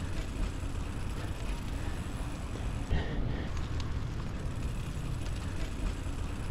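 Steady low rumble of outdoor street ambience with wind on the microphone, and a short clack about three seconds in.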